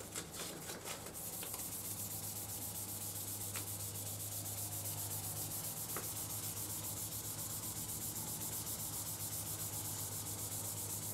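Waterproof sandpaper wet-sanding a motorcycle's chromed front fork tube with WD-40, in quick, even back-and-forth strokes, to take corrosion pitting off the area where the fork seal slides.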